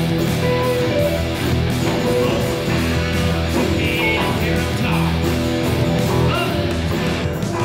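Live band playing with electric and acoustic guitars, bass guitar and drums.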